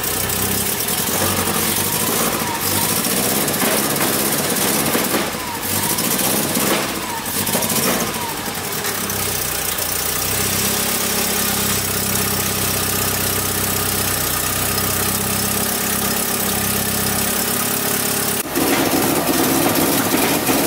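Honda H22 DOHC VTEC four-cylinder engine running at a fast, even idle, with a few brief sharp bursts about five to eight seconds in as the throttle is worked. The engine will not yet take throttle, which the owner puts down to cam timing set about one tooth off.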